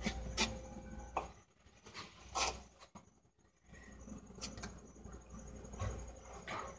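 Scattered scuffs and taps as hands, boots and knee pads shift on concrete pavement, over a faint low rumble.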